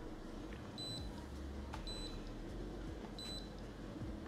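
Short high electronic beeps from an Acson (Daikin) mini split's display receiver board, three of them a little over a second apart. Each answers a press of the remote's cancel button as the remote steps through error codes. A short beep means the code shown is not the stored fault; only a long beep marks it.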